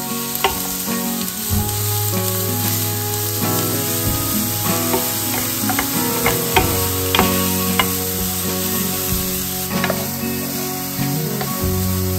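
Grated carrot and diced onion sizzling in oil in a non-stick frying pan while a wooden spatula stirs them. Scattered sharp clicks and scrapes come from the spatula against the pan.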